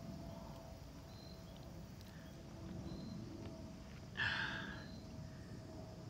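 Faint handling noise as a small green sunfish is unhooked, with a faint high chirp repeating about every second and a half. About four seconds in comes one short loud snort of breath.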